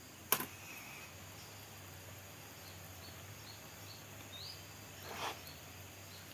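Faint background with a steady low hum, one sharp click about a third of a second in, a few small high chirps through the middle, and a short hiss about five seconds in.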